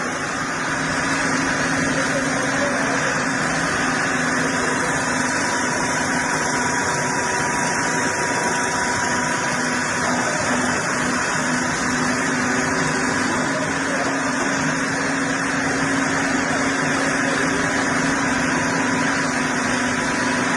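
A machine's engine running steadily, with a constant hum and no knocks or changes.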